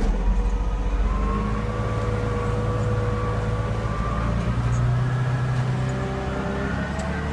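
Diesel engine of a Volvo G930 motor grader running steadily under load while ploughing snow, with a faint higher whine that drifts slightly in pitch.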